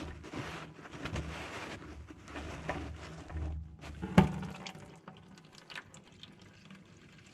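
Hand work with metal tools and parts for an oil change: short scraping and rustling sounds, then one sharp metal knock about four seconds in, followed by a few faint ticks.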